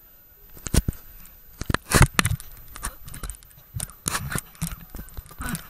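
Close handling and water noise on a hand-held action camera at the water's surface: irregular sharp crackling knocks and splashes right at the microphone, starting about half a second in.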